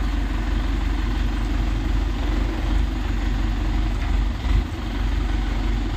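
A motor or engine running steadily with a low drone, with a few low bumps about four and a half seconds in.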